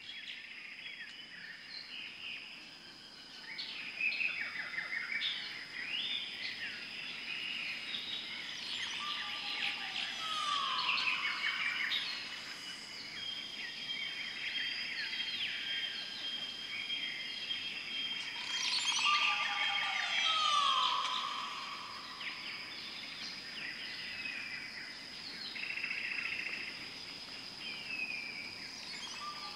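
Many birds chirping and calling over a steady high-pitched whine, with a falling call that comes back about every nine seconds.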